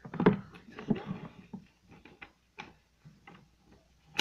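A sheet of paper handled and lifted: a loud rustle about a quarter second in, then scattered light taps and clicks, with a sharp click at the very end.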